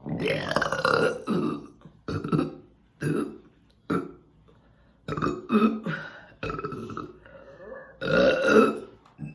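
A run of about seven loud burps: a long drawn-out one at the start, several shorter ones in the middle and another long one near the end. They are brought up by drinking sparkling water.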